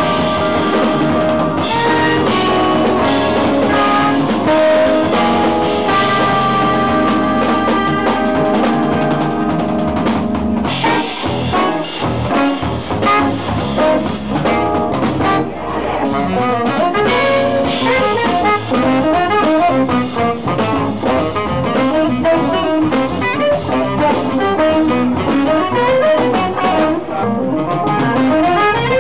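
Live jazz band playing: saxophone lead over electric guitar, electric bass, keyboard and drum kit. Long held notes fill the first third, then the music turns busier, with quick runs of notes and steady cymbal work.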